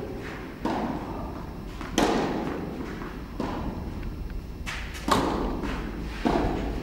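Tennis ball struck by rackets and bouncing, about six sharp hits roughly a second apart, each echoing through a large indoor tennis hall; a loud hit just after five seconds follows the serve toss.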